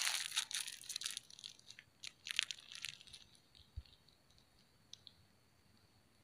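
Close rustling and crinkling handling noise in short scraping bursts for about three seconds, then a soft thump and a couple of faint clicks before it goes quiet.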